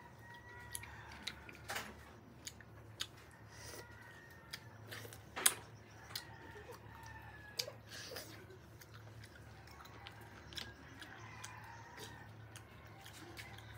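Clam shells clicking as cooked clams are pried open by hand, mixed with chewing; one sharper click about five and a half seconds in.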